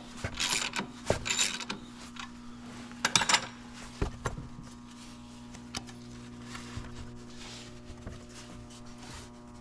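Ratchet wrench clicking in short spells as a bolt is tightened to bring the alternator belt to tension, in the first second and a half and again around three seconds in, with a few light knocks. After that only a faint steady hum.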